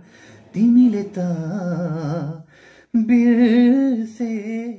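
A man singing a Nepali song unaccompanied: two long held phrases with vibrato, a short pause between them.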